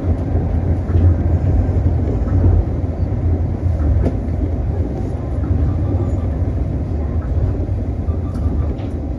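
Tokyo Monorail train running along its elevated straddle beam, heard from inside the front of the car: a steady low rumble from its rubber-tyred running gear, with a few faint clicks.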